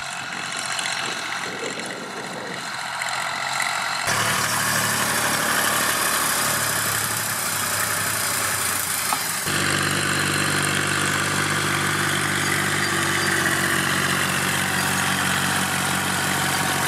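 Massey Ferguson 255 tractor's three-cylinder diesel engine running steadily over a constant hiss, with the sound changing abruptly about four and nine seconds in.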